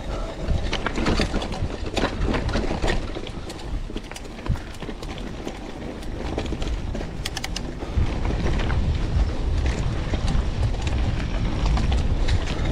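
Mountain bike rolling downhill over a rough dirt trail: a low rumble from the tyres and riding, with scattered clicks and rattles from the bike. It gets louder about eight seconds in.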